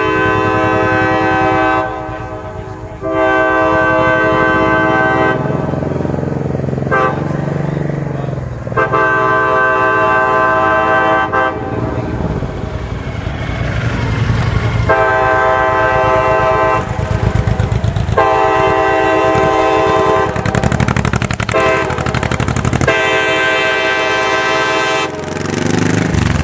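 Nathan K5LA five-chime locomotive air horn sounding its chord in a series of long blasts of about two seconds each, with short gaps and a few brief toots between them. A low rumble is heard in the gaps.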